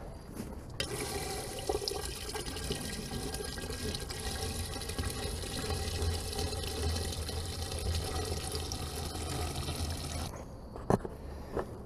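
Diesel fuel running from a transfer-pump hose nozzle into a skid steer's fuel tank in a steady pour. It starts about a second in, cuts off near the end, and is followed by a couple of short knocks.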